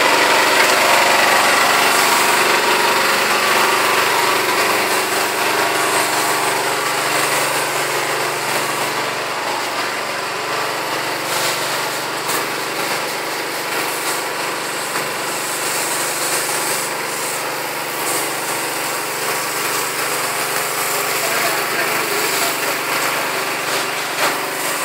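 Small engine running steadily, driving the pump that feeds the spray hose.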